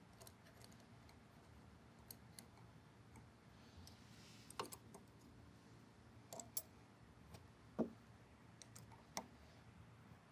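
Faint, scattered clicks and light taps of tools and parts being handled while reassembling a can seamer, a few louder ones from about halfway through.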